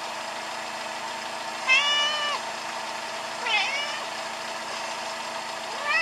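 Domestic cat meowing twice, a longer call about two seconds in and a shorter one that dips and rises about three and a half seconds in, with a third beginning at the very end, over a steady hum.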